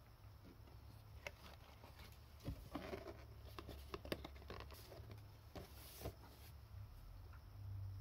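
Faint rustling and a scatter of soft taps and clicks from a cardboard pastry box being closed by hand, its lid folded down and the flap tucked in.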